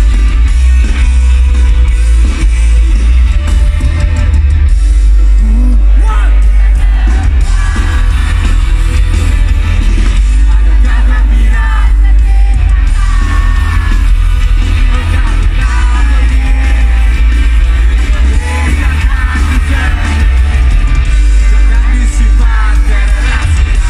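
Live rock band playing loud, with heavy bass throughout and singing coming in about six seconds in.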